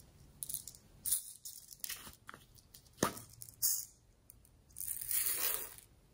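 Small plastic toy container being handled: a series of plastic clicks and taps as its lid is pulled off, the sharpest about three seconds in. About five seconds in, small plastic beads rattle out in a rush lasting about a second as the cup is tipped over the tray.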